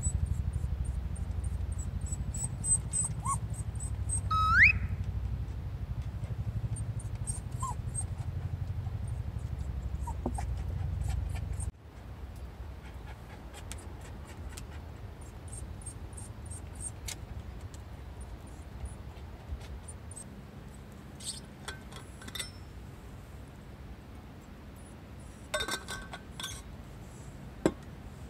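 Toy poodle giving one short, rising whine about four seconds in, with a few fainter whimpers around it, over a steady low rumble that stops abruptly after about twelve seconds. Later come a few light clinks.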